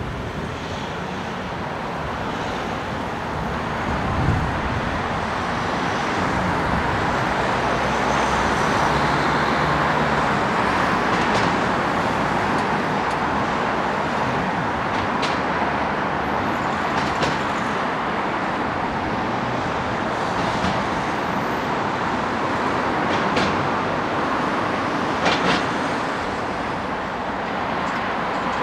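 Steady road traffic noise from lorries and other vehicles moving past, swelling from about four seconds in, with a few short sharp clicks here and there.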